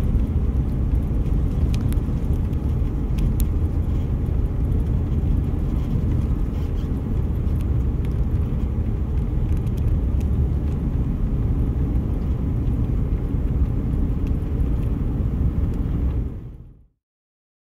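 Steady low rumble of a car driving on a paved road, heard from inside the cabin, with a few faint ticks early on. It fades out quickly about a second before the end.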